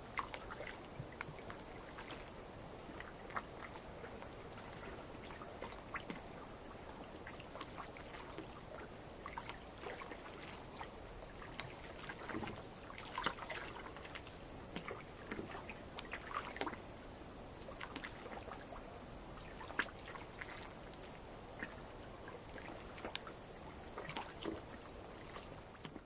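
A steady, high-pitched chorus of night insects, with light waves lapping against lava rock in small, irregular splashes.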